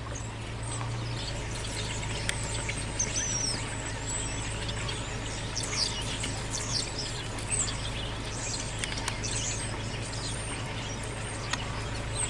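Outdoor ambience with small birds chirping here and there in short, high calls over a steady background of faint noise.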